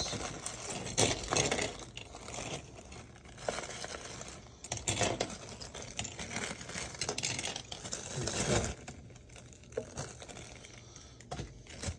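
A plastic bag rustling as it is handled, with loose LEGO bricks clicking against one another inside it in irregular little knocks.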